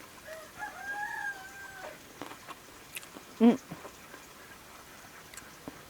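A rooster crowing once, a long arching call lasting about a second and a half. About halfway through comes a short, louder sound, with faint clicks scattered around it.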